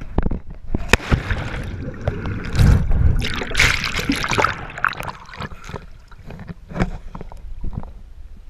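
Lake water splashing and rushing as a person plunges in with the camera, with bubbling and churning while the camera is under water. Near the end it thins to scattered drips and small splashes at the surface.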